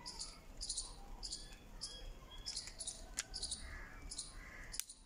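Birds chirping repeatedly in short high calls, about two a second. Two sharp clicks, about three seconds in and near the end, come from the phone being handled in the plastic bicycle phone holder.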